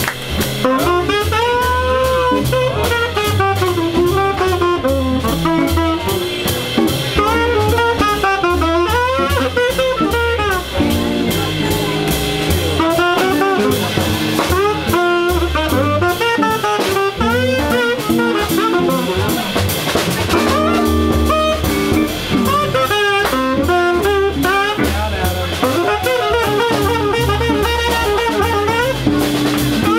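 Live small jazz band: a saxophone solo of running, bending lines over drum kit with cymbals and a low stepping bass line.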